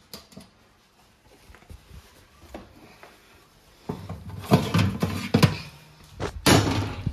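A small click as the oven's timer knob is turned off. Then, from about four seconds in, a foil-lined metal baking tray is pulled out over the oven's wire rack: a series of clattering knocks and scrapes, the loudest scrape near the end.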